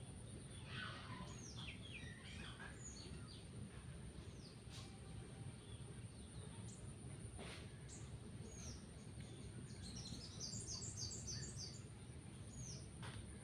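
Small birds chirping faintly in the background, with short high calls scattered through and a quick run of repeated notes about ten seconds in. Under them run a low steady hum and a thin steady high whine.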